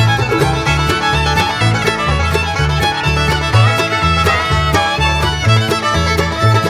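Background bluegrass-style music with fiddle over a steady bass and beat.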